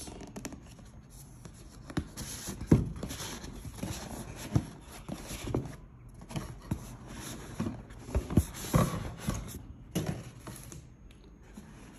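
Cardboard retail box being handled as its printed sleeve is slid off the inner box: irregular scraping and rubbing of card on card with light knocks, a sharper knock about three seconds in and a cluster of taps near the end.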